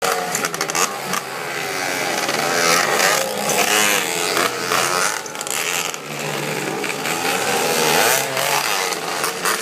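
Dirt bike engines racing on a track, revving up and down over and over so the pitch keeps rising and falling as the bikes accelerate, jump and pass.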